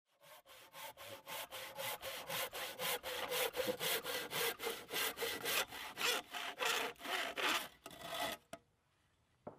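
Hand saw cutting through wood with quick, even back-and-forth strokes, about three a second, stopping a little over eight seconds in. A single sharp click and a short knock follow near the end.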